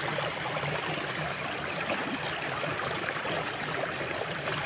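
Water flowing steadily in a small drainage ditch, an even rushing with no breaks.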